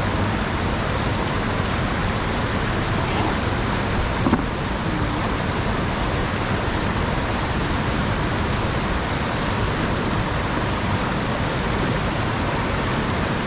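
Steady rush of flowing water, an even noise with no change, with one faint knock about four seconds in.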